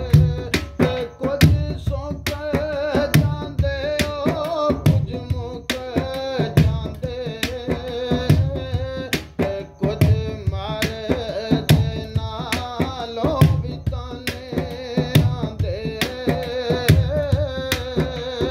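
A voice singing a wavering, ornamented melody over fast hand-drumming on an upturned steel cooking pot played as a drum, with dense, sharp strokes throughout.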